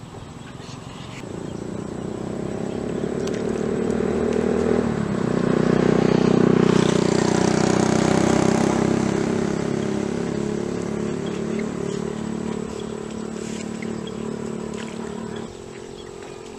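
A motor vehicle's engine passing by: it draws near, is loudest a little past halfway through, then fades away.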